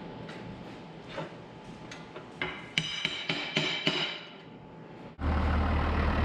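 Hammer blows on steel, each ringing, in a quick run of several strikes about three to four seconds in, as loader pins and parts are knocked into place. About five seconds in the sound cuts abruptly to a tractor engine running steadily.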